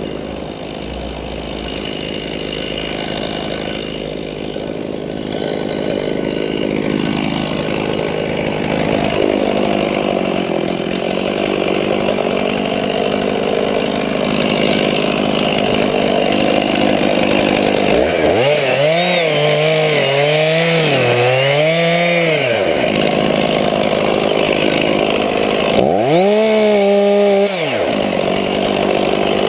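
Two-stroke chainsaw running loud and steady for the first part, as if under load in wood, then revving up and down in pitch several times, around 18 and 26 seconds in.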